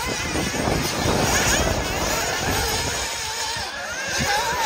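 Several nitro RC buggy engines revving as they race, their high-pitched whine wavering and rising and falling with the throttle.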